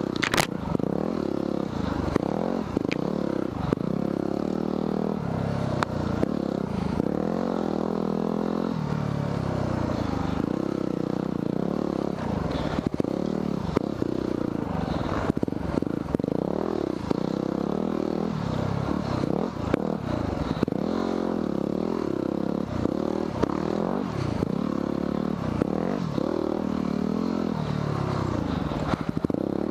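Yamaha WR250R dual-sport's 250 cc single-cylinder four-stroke engine under way, its revs rising and falling continually, with scattered knocks and rattles from the bike.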